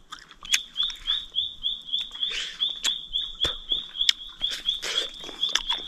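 A high-pitched chirp from a forest animal, repeated evenly about five times a second. Over it come clicks and wet mouth sounds of someone biting and chewing wild honeycomb.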